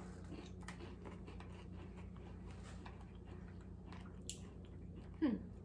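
Two people quietly chewing yogurt-coated pumpkin spice shortbread cookies: faint crunches and mouth sounds over a low steady hum. A short falling vocal hum comes near the end.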